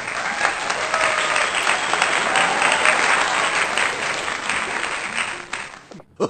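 Applause: a dense crackle of many hands clapping that starts straight after a countdown and stops abruptly about six seconds in, with faint music under it.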